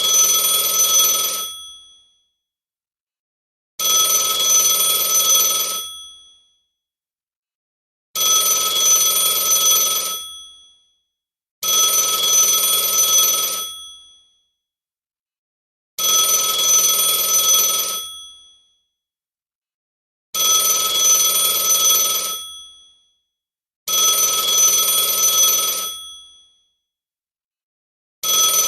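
Telephone bell ringing in repeated rings about two seconds long, a new ring starting roughly every four seconds, with silence between rings.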